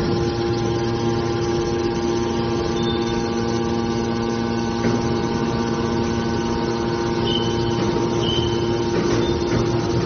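Hydraulic scrap metal baler's power unit, an electric motor driving the hydraulic pump, running with a steady hum of several tones. A few brief high whistles come through, mostly in the second half.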